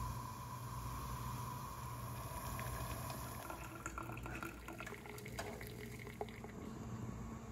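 Water heating in a steel pot before the boil: a faint steady hiss with a thin whine. About four seconds in this gives way to small ticks and drips of brewed coffee bubbling and dripping through a paper filter in a plastic pour-over dripper.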